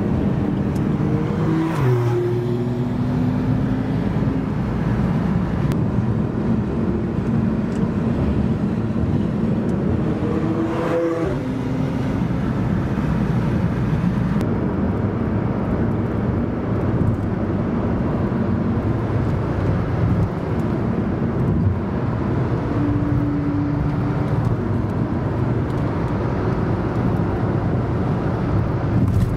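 Supercar engines passing at speed on the open road over a constant rumble of road and wind noise. About two seconds in, one car's engine note drops sharply as it goes by, and near eleven seconds another rises and then falls in pitch as it passes.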